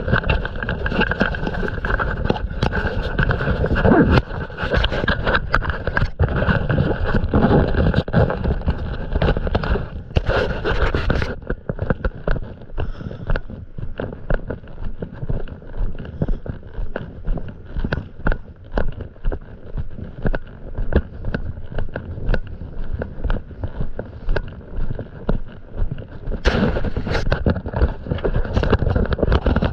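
Footsteps walking steadily across wet sand, about two steps a second. For the first ten seconds or so they are mixed with a louder steady rushing noise, which stops about eleven seconds in.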